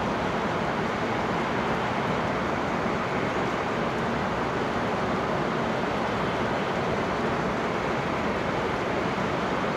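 Steady rumble and rushing of a Hokuriku Shinkansen train running at speed, heard from inside the passenger cabin.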